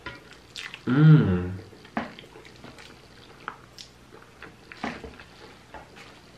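A person eating jajangmyeon black bean noodles close to the microphone: scattered wet mouth clicks and smacks while chewing, with one short voiced sound from the eater about a second in.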